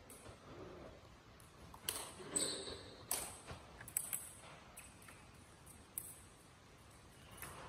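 Badminton rally: a series of sharp racket strikes on the shuttlecock, about a second apart from about two seconds in and once more near six seconds, with footwork and shoe squeaks on the wooden hall floor, echoing in the sports hall.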